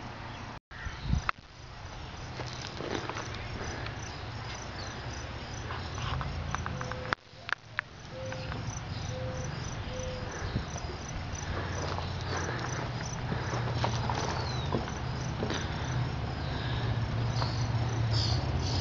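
Insects chirping in a fast, even pulse over the low rumble of a Metra commuter train's diesel locomotive, which grows louder toward the end as the train gets under way.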